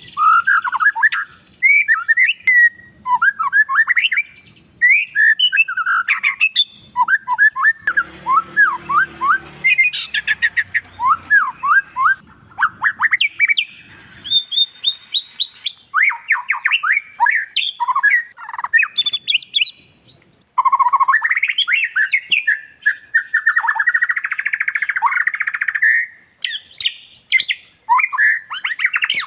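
Oriental magpie-robin (kacer) singing in full voice: fast, varied runs of sliding whistles and chattering notes, broken by brief pauses. It is a bird in full song ('gacor'), the kind of track used to provoke other kacer into singing.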